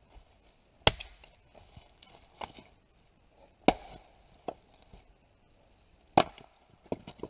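Axe splitting dry arbutus (madrone) firewood rounds: three sharp strikes about two and a half seconds apart, with lighter knocks in between.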